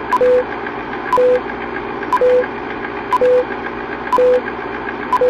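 Film countdown leader sound effect: a steady projector-like whir with rapid faint ticking, and once a second a click and a short beep, six beeps in all, as the numbers count down.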